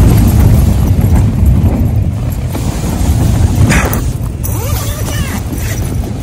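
Gusting wind buffeting a Hilleberg Nallo 2 tent, heard from inside as a heavy rumble on the microphone that eases slightly. About halfway through there is a brief rasp as the inner door zip is pulled and the door fabric is moved aside.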